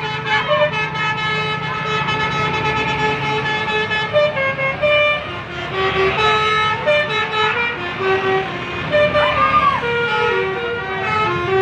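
Indonesian "telolet" Basuri multi-tone bus horn playing a tune: a run of held notes that step to a new pitch every half second or so, with short breaks between phrases.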